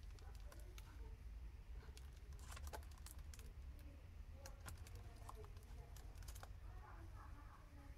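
Faint clicking and clacking of plastic CD jewel cases knocking against each other as they are tipped forward one by one. A quick run of clicks comes a couple of seconds in and more through the middle, over a low steady rumble.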